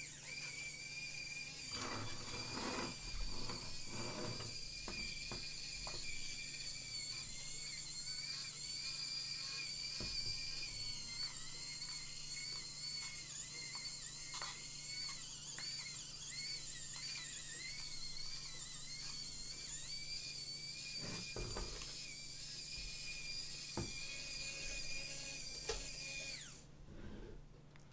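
Small DC motor in a DDS3 tape changer's cartridge-handling mechanism, run directly on a supply voltage, whining steadily at a high pitch with a slightly wavering tone. A few light clicks come through it, and the whine falls and stops about a second before the end.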